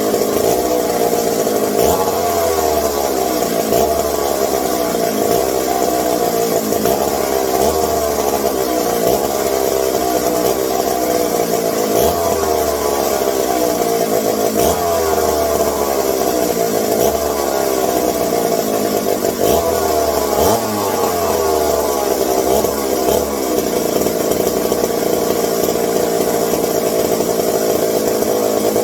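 Vintage McCulloch 740 chainsaw's two-stroke engine running continuously, its speed rising and falling repeatedly under the throttle.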